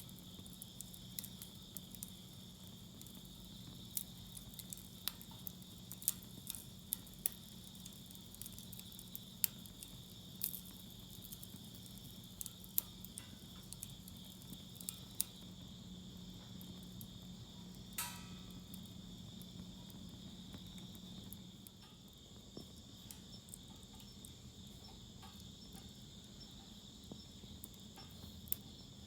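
Wood fire in a fire pit crackling, with scattered sharp pops that come thicker in the first half and one louder crack about two thirds of the way through. A steady insect trill, typical of crickets, runs underneath.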